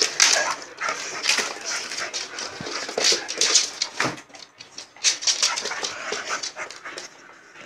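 Young Staffordshire Bull Terrier playing excitedly, making a run of short, irregular dog noises that thin out near the end.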